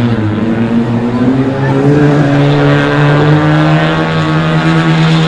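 Banger cars' engines running and revving unevenly, with the pitch rising and easing off gently.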